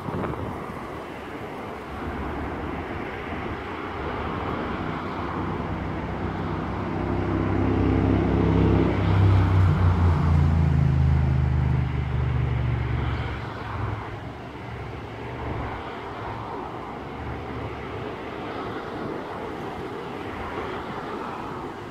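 Diesel locomotive engine running with a low, steady hum. It swells over several seconds to its loudest about halfway through, then fades.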